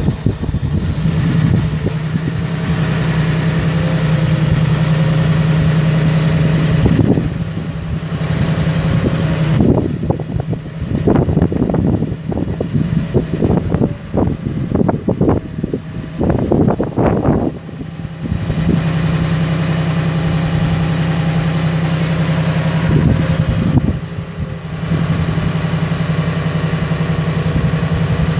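Cummins 6.7-litre inline-six turbo diesel of a Dodge Ram 5500 bucket truck running with a steady hum while it drives the hydraulics of the Altec aerial boom as the basket is raised. For several seconds in the middle the hum is broken by uneven rushing noise.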